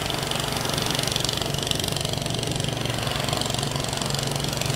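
Outboard motor of a small fishing boat running steadily as the boat pulls away from shore, with a steady high hiss behind it.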